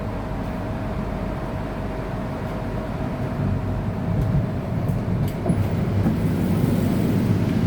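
KTM Komuter electric train running, a continuous low rumble with a thin steady hum that ends about halfway through. The rumble grows louder in the second half.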